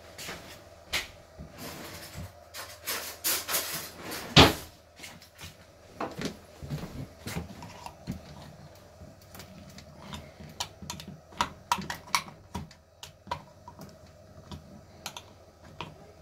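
Hands handling and opening a small black enclosure box: scattered small clicks, taps and scrapes, with a rustle around two to four seconds in and one sharp, louder knock just after four seconds.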